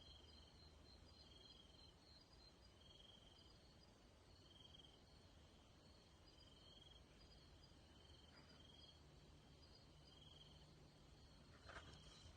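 Faint night insects calling, with short trilled chirps repeating about every second and a half over a higher, continuous pulsing trill. Under them there is a low hum, and a faint steady low drone joins about two-thirds of the way in.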